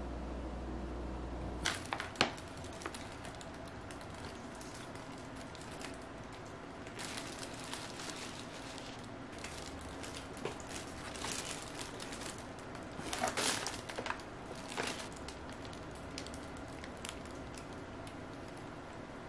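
Plastic bags and plastic food packaging rustling and crinkling in irregular bursts as groceries are taken out of a delivery bag, with two sharp clicks about two seconds in.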